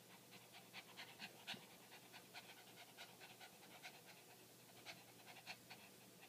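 Small dog panting in quick, faint breaths, about four a second, from the exertion of humping a plush toy.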